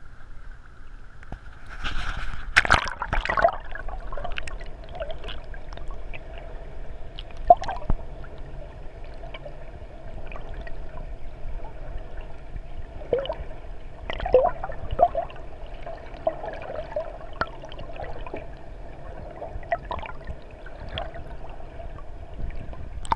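Muffled gurgling and sloshing of lake water heard through a GoPro's waterproof housing as it is held at the surface and then underwater. There is a louder rush of splashing about two to three seconds in. Scattered clicks and knocks sit over a steady hum.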